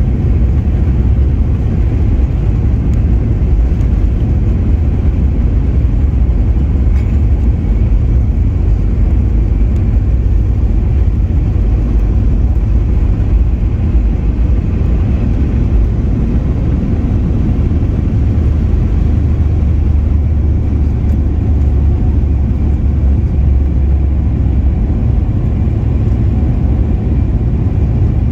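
Boeing 737 MAX 9 heard from inside the cabin beside the wing during its takeoff roll: its CFM LEAP-1B engines run at takeoff power as a loud, steady low roar, with the rumble of the wheels on the runway. The aircraft lifts off partway through.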